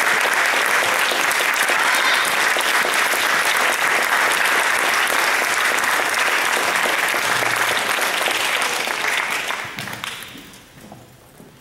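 Audience and choir applauding, a steady wash of clapping that dies away about ten seconds in.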